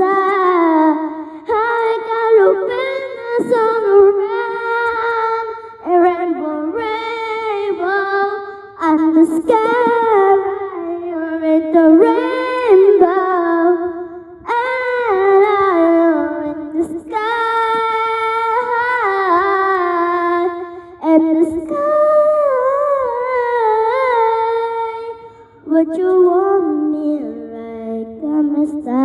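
A woman's voice singing a slow melody unaccompanied, wordless or close to humming, in phrases of a few seconds each with short pauses between them.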